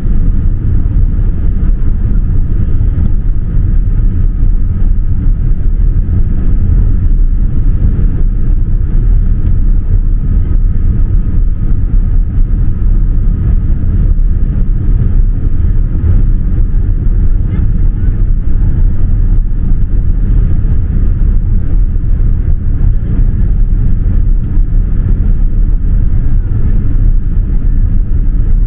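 Boeing 787-9 cabin noise on approach: a loud, steady low rumble of the engines and airflow heard from a seat behind the wing, with a faint steady whine above it.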